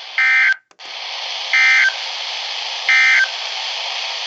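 Three short bursts of EAS SAME digital data tones, the End of Message code that closes the alert, about 1.3 seconds apart over steady radio hiss. The hiss cuts out briefly just after the first burst.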